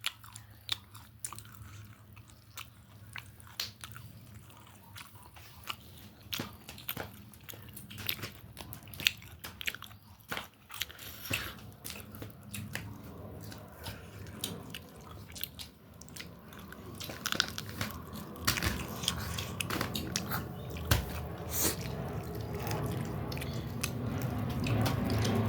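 A person eating chicken close to the microphone, biting and chewing with many short, sharp crunchy clicks. A low background noise grows louder over the last several seconds.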